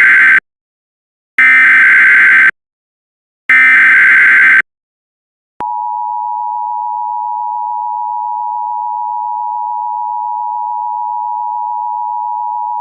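Emergency Alert System tones: three one-second bursts of SAME digital header data, the first already underway, followed about five and a half seconds in by the steady two-tone EAS attention signal.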